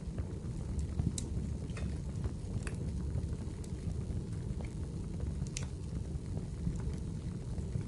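Wood fire crackling in a fireplace: a steady low rumble of the flames with scattered sharp pops, the loudest about five and a half seconds in.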